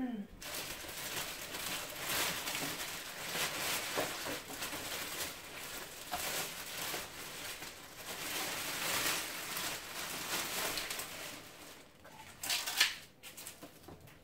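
Clear plastic packaging bag crinkling and rustling as it is pulled down off an upright vacuum cleaner. The rustling goes on almost without a break, stops about twelve seconds in, and comes back once briefly just after.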